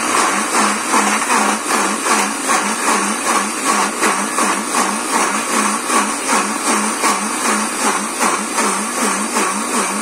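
Electric blender running loaded with chopped pieces of fresh coconut, grinding them into grated coconut. Its motor note rises and falls about twice a second as the chunks tumble against the blades.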